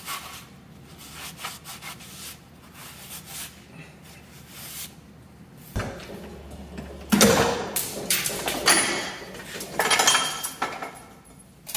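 Paper shop towel rubbing over the oily underside of the car in soft, repeated wiping strokes. About six seconds in this gives way to an old exhaust system being worked loose by hand, with louder metal knocks and scrapes of the pipes, loudest about a second later and again near the end.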